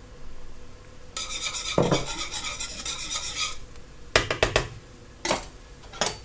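Wire whisk stirring fast in a large pot of boiling broth, rattling against the metal for about two seconds, then a handful of sharp metal clicks and taps on the pot.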